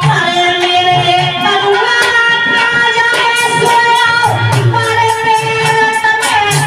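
Indian devotional folk song (jas): singing with long held, gliding notes over a steady drum beat.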